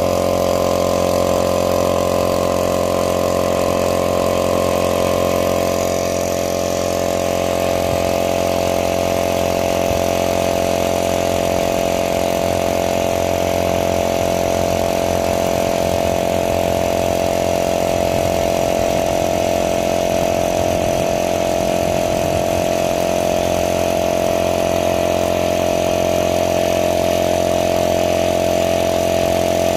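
Oil-lubricated piston air compressor running steadily on a newly replaced valve reed, pumping up tank pressure. Its hum holds an even pitch, with a slight brief drop in level about six seconds in.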